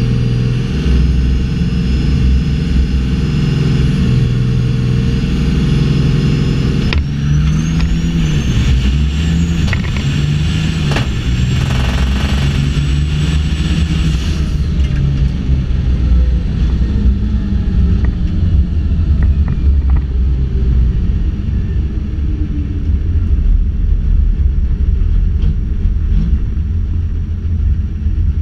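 Diesel drag truck heard from inside the cab. The engine runs steadily with a high whine for about seven seconds, then launches: the engine note surges, and a high whine climbs through a hard pass of about seven seconds. About halfway through the whine and power cut off abruptly as the throttle closes at the end of the run, leaving a lower engine rumble as the truck coasts.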